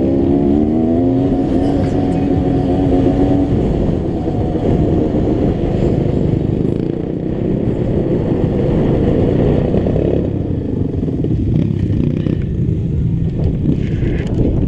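Dirt bike engine running under way, revs climbing at the start and then held high, with rattle from the bike over rough ground. The engine eases off about ten seconds in.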